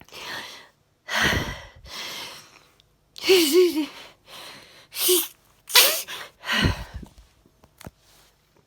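A woman's sneezing fit: about five loud sneezes in quick succession, some with a voiced cry, separated by sharp gasping breaths in.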